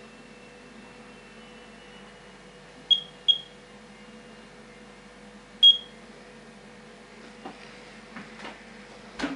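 Radex RD1008 radiation dosimeter chirping three times, each short high beep marking a counted particle as it is held against the picture-tube glass of a CRT television. Two chirps come about a third of a second apart, then one more about two and a half seconds later. There is a faint knock near the end.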